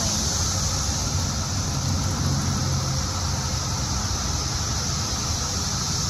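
Chorus of Brood X periodical cicadas calling together as one steady, high-pitched hiss, over the low rumble of highway traffic.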